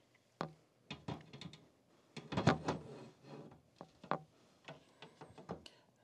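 Tempered glass side panel being fitted onto a Tecware VXN Evo Pro PC case: a scatter of light knocks and clicks of glass against the metal frame, busiest a little after two seconds in, as the tool-less locking mechanism latches it into place.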